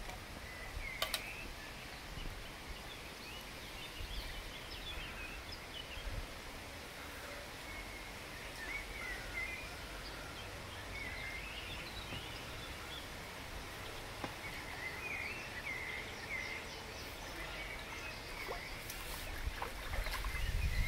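Small birds chirping and twittering on and off, over a low steady background rumble.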